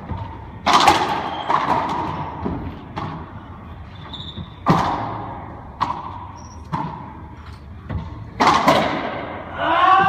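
Racquetball rally in an enclosed court: sharp cracks of the ball off the racquets and walls about once a second, each echoing off the walls, with a couple of brief sneaker squeaks on the hardwood floor. A short pitched squeal or cry comes near the end.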